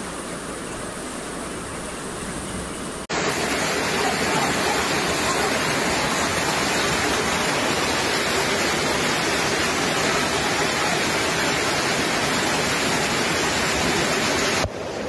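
Heavy rain pouring down on a flooded street, a steady rushing hiss of rain and running floodwater. It is moderate at first and suddenly much louder and fuller about three seconds in.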